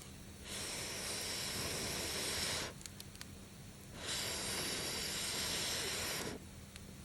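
Two long rushes of air into a campfire, each about two seconds, starting and stopping abruptly, with a few faint crackles from the fire in the pause between them.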